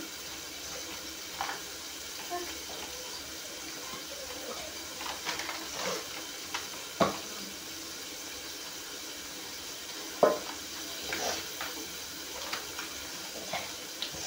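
Hands kneading roti dough in a steel bowl: soft pressing and squishing with scattered knocks against the metal bowl, the sharpest about seven and ten seconds in, over a steady low hiss.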